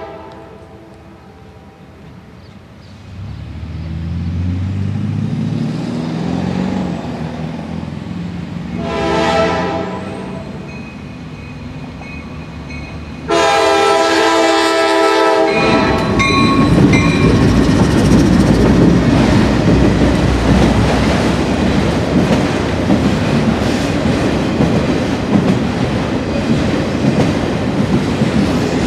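Norfolk Southern diesel freight train approaching and passing. The locomotive grows louder and rises in pitch, and its horn sounds briefly about nine seconds in, then louder for about two seconds around thirteen seconds. After that the steady loud rumble and wheel clatter of autorack cars rolling by takes over.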